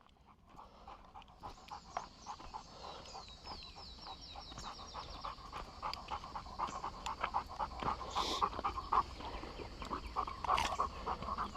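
Fast, rapid panting breaths close to the microphone. A short run of quick, high falling notes is heard a few seconds in.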